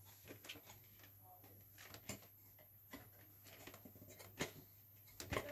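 Faint, scattered clicks and rustles of small plastic toy pieces being handled and fitted together, with a few sharper clicks.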